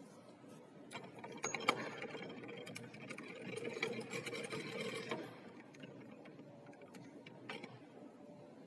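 A small machine runs with a whirring hum and fast clicking, then stops about five seconds in. Light clicks and taps of metal being handled follow.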